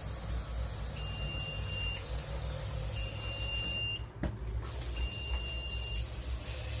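Gas detection system alarm beeping, set off by test gas mimicking a gas leak: a single high tone about a second long, sounding three times at two-second intervals, over a steady hiss and a low hum.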